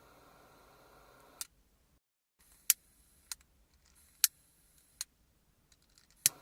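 Cigarette lighter being clicked: a faint steady hiss cut off by a click about a second and a half in, then a run of sharp single clicks roughly a second apart, and the hiss returns after the last click near the end.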